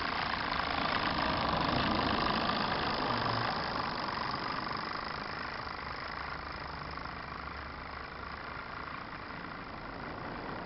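Miniature live-steam traction engines running, a steady noisy sound that grows fainter from about two to three seconds in and picks up slightly near the end.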